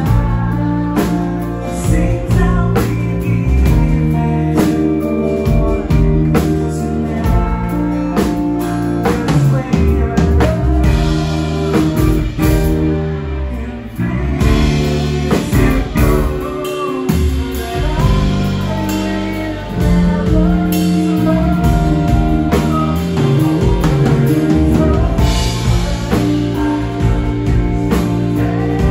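Live rock band playing: drum kit, electric bass, acoustic and electric guitars and keyboard, with steady drum hits and a brief dip in loudness about thirteen seconds in.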